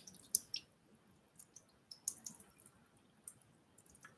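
Faint, irregular wet clicks and drips: a wet makeup brush being squeezed and worked between the fingers over a sink, water dripping off the bristles.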